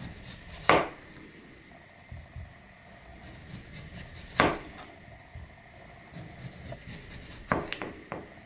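Maxace Amber 2S folding knife slicing an orange into thin slices, the blade knocking on the cutting board as each cut goes through. There is a sharp knock about a second in, another about halfway, and a quick run of four or five knocks near the end, with faint rubbing and handling between.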